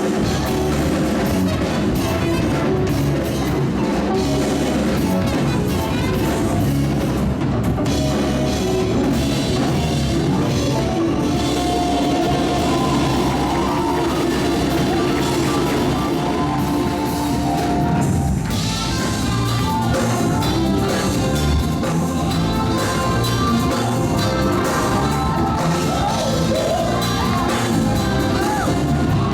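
Live band playing a gospel-groove hymn arrangement, with a drum kit keeping the beat.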